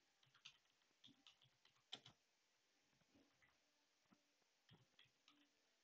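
Near silence with a few faint, scattered clicks of computer keys.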